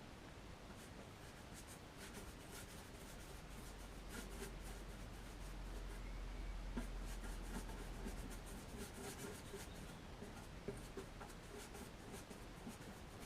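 A brush spreading a thin coat of resin over the fibreglassed boat console: faint, scratchy rubbing with scattered light taps.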